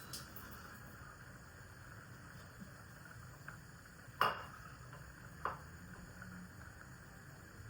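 Quiet kitchen sounds: a steady low hum with a sharp clack about four seconds in and a smaller one about a second later, typical of utensils or cookware being set down.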